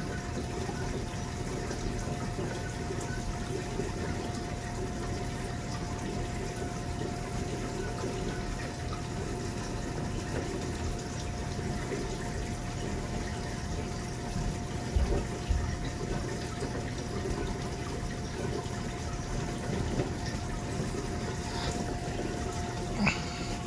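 Steady running-water and pump noise from a reef aquarium's circulation, with a faint constant whine. A couple of dull bumps come about two thirds of the way in.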